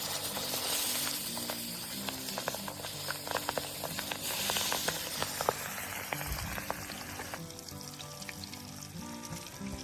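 Fish frying in hot oil: a steady sizzle with quick crackles and pops, thinning out over the last couple of seconds. Background music plays along.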